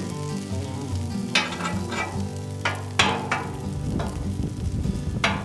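Shredded hash-brown potatoes sizzling on a hot flat-top griddle while a metal spatula scrapes and pushes them into a square, with several sharp scrapes of the blade on the cooktop.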